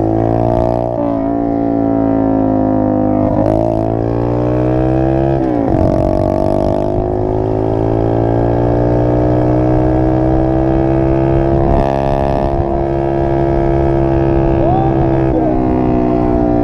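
Small dirt bike's engine running under load while being ridden. Its pitch drops sharply at gear changes about one, three and a half and five and a half seconds in, climbs slowly for several seconds as the bike speeds up, and drops again near the end.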